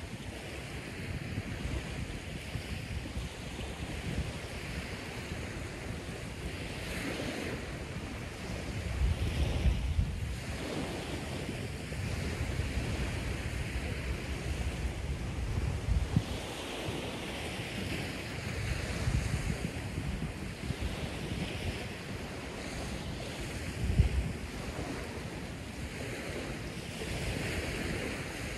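Wind buffeting the microphone in several low gusts over a steady rushing hiss, with one short low bump late on.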